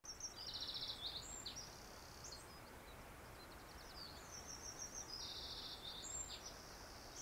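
Faint recorded nature ambience: small birds chirping in quick, high trills over a steady background hiss, the trills coming in a cluster in the first second or so and again from about four to six seconds in.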